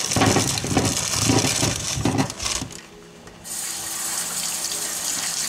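Small potatoes tumbling out of a mesh bag into a plastic colander in an irregular clatter. After a short lull about three seconds in, a tap runs in a steady hiss, as for rinsing them.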